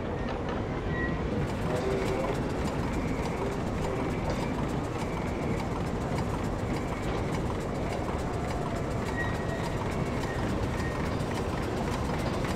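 1929 Sentinel steam waggon's undertype steam engine running, with a steady hiss of escaping steam over a fast, even mechanical clatter.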